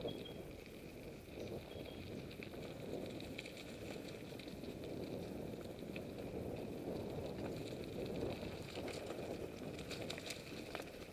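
Mountain bike riding along a dirt and gravel forest track: a steady rolling crunch of the tyres, with scattered rattles and clicks from the bike.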